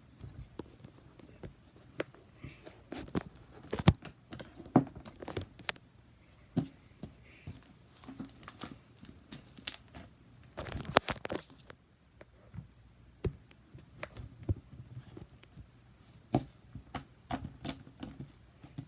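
Irregular close-up handling noise: scattered taps, clicks and crinkles, with a denser rustling burst about eleven seconds in.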